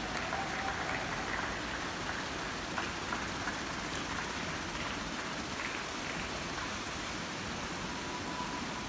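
Distant applause from many people clapping at once, heard as a dense rain-like crackle, with a brief steady high tone near the end.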